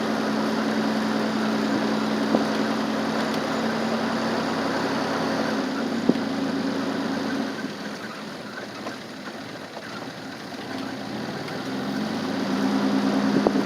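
Car engine idling, a steady hum that fades out about halfway through and comes back near the end, with a few sharp clicks.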